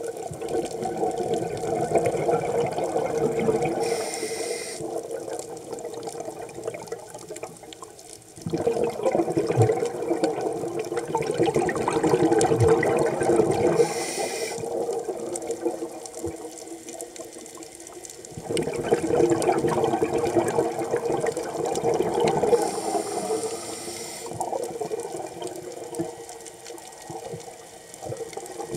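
Scuba diver breathing through a regulator, heard underwater: a short hiss of inhalation, then several seconds of bubbling exhalation, three breaths in all.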